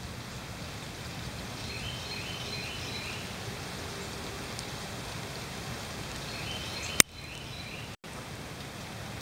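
Steady outdoor background hiss, with a small bird singing a short chirping phrase twice. There is a sharp click about seven seconds in and a brief dropout of all sound a second later.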